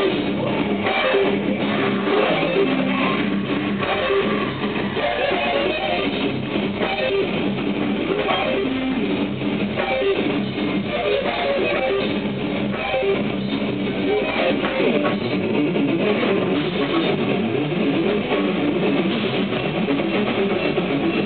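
Live metal band playing: electric guitars and bass with drums, loud and continuous.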